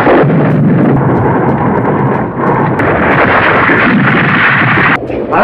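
Film sound effects of a volcanic eruption: a loud, continuous rumble with blasts, dropping out briefly near the end.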